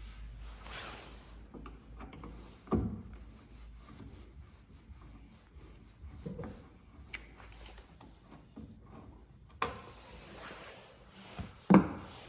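Hand tools working out a tail light's retaining screw with a T20 star screwdriver: low rubbing and scraping, with a few sharp knocks, the loudest near the end.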